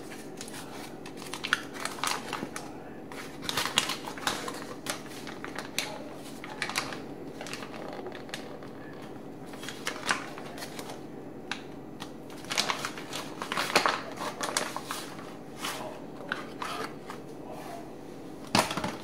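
Foil-lined paper hot dog wrapper crinkling and rustling as it is handled, in irregular bursts.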